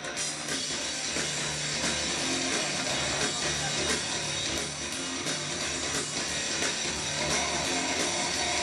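Live rock band playing loudly over a concert PA, heard from the crowd: electric guitar over bass and drums.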